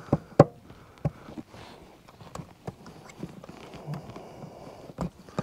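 About half a dozen irregular sharp clicks and knocks from a Phillips screwdriver working the screws on the metal junction box of a canless LED recessed light, with soft rustling between them.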